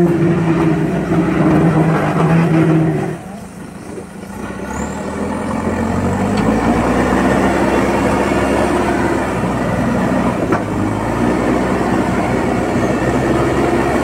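JCB 3DX backhoe loader's diesel engine working under load as the front bucket pushes earth. About three seconds in it drops off briefly, then builds back up to a steady, heavy run.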